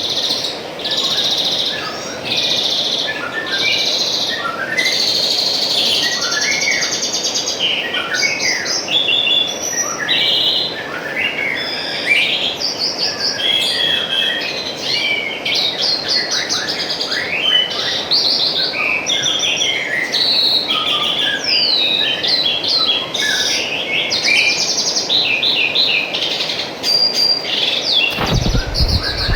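Small songbirds chirping and trilling busily, many short repeated calls overlapping, over a steady trickle of running water. A brief low rumble near the end.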